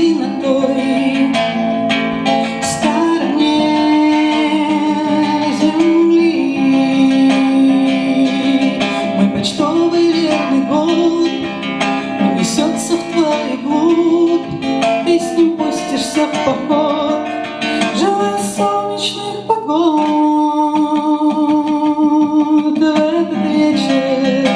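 A woman singing with vibrato on held notes while accompanying herself on an acoustic guitar.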